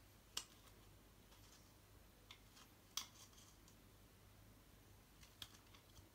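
A thin plastic bottle clicking and crackling as it is handled while string is threaded through it: a few sharp clicks, three louder ones spread about two and a half seconds apart, over near-silent room tone with a low hum.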